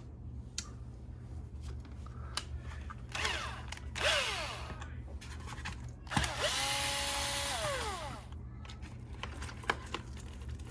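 Cordless power screwdriver backing screws out of an RC truck's battery tray: two short runs of its motor whine, the second longer, each dropping in pitch as the trigger is released, with small clicks of handling between.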